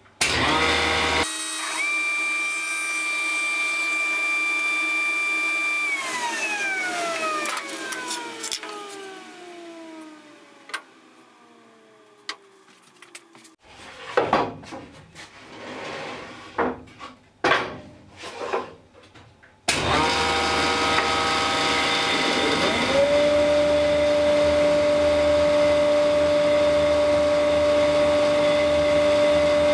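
Woodworking power tools. One machine starts, runs with a steady whine, is switched off and winds down in pitch over several seconds; then come irregular knocks and clatter of handling. About two-thirds of the way in, a machine with a steady rushing noise, like a dust extractor, starts suddenly, and a tool spins up under it to a steady whine.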